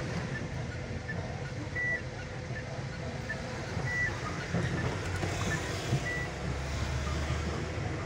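A car's engine and tyre noise heard from inside the cabin while driving on a winding road, a steady low rumble. A short high electronic beep repeats about every two seconds over it.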